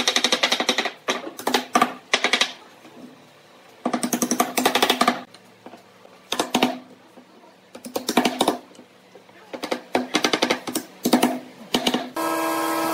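Wooden mallet knocking pine slats into the slots of a round table frame, in quick bursts of rapid taps with short pauses between them. Music comes in near the end.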